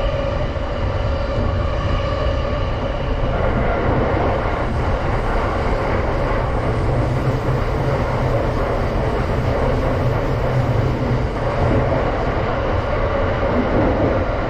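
Running noise heard inside a moving JR East Tokaido Line electric commuter train: a steady rumble of wheels on rail, with a steady whine in the first few seconds that fades out.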